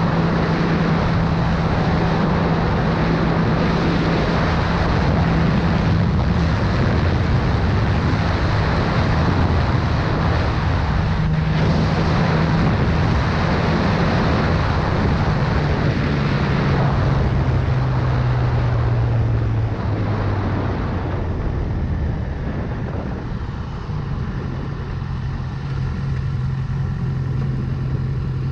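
Motorcycle engine running at highway speed under heavy wind rush. About two-thirds of the way through, the engine note falls and the wind eases as the bike slows, and near the end the note steps up again.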